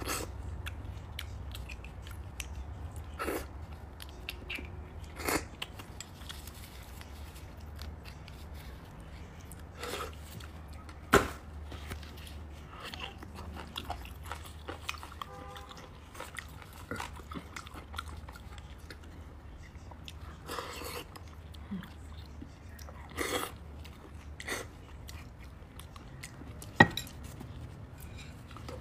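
Close-miked eating sounds of beef bone marrow: soft chewing and mouth noises, broken by scattered short, sharp clicks of a metal spoon against the bone and plate. The sharpest click comes near the end, over a low steady hum.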